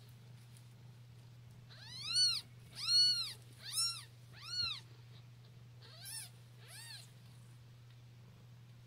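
Newborn Siamese kittens mewing: six high-pitched cries, each rising then falling in pitch, four loud ones close together and then two fainter ones.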